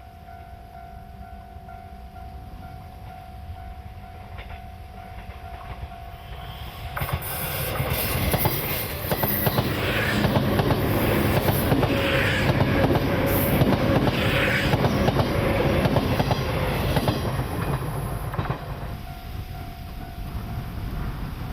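A train passing over a level crossing, its wheels clattering over the rail joints, building from about seven seconds in and fading after about eighteen. A level-crossing warning bell rings steadily before and after the train goes by.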